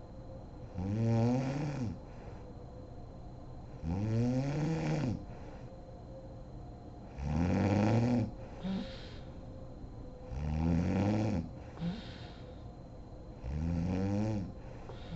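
A sleeping woman snoring: five pitched snores, each about a second long, about one every three seconds, the pitch of each rising and then falling. Short breathy exhales come between some of the snores.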